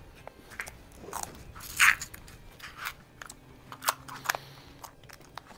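Scattered clicks, rustles and crunches of someone moving about and handling gear, loudest about two seconds in.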